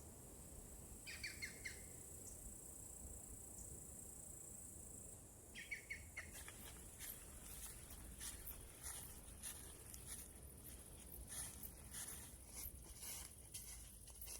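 Insects chirring steadily with a high, thin sound, with two short bursts of bird chirps, about a second in and again near six seconds. From about six seconds on there are irregular clicks and crunches. The whole scene is faint.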